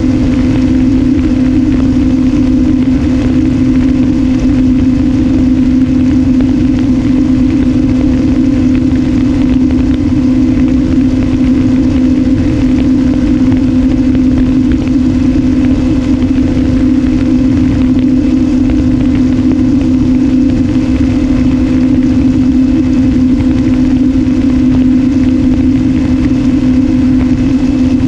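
RMRC Strix Strato-Surfer's electric motor and propeller running at a steady cruise, a constant hum with no change in pitch, heard from the onboard camera with wind rumbling over the microphone.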